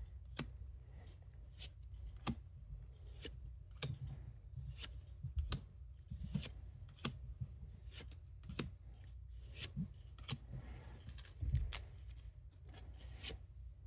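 Pokémon trading cards and booster-pack wrapper being handled: a series of short crisp snaps and clicks, about one or two a second.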